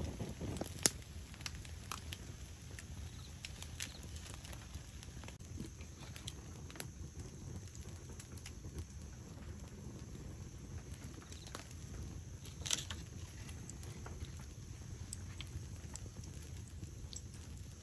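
Wood fire in a stove crackling: scattered sharp pops and clicks over a low steady rumble, with a louder pop about a second in and another about two-thirds of the way through.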